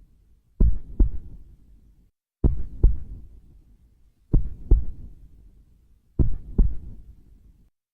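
Heartbeat sound effect: slow double thumps (lub-dub), four pairs about two seconds apart.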